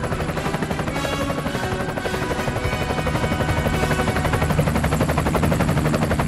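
Helicopter rotors beating steadily in quick, even pulses, mixed with background music.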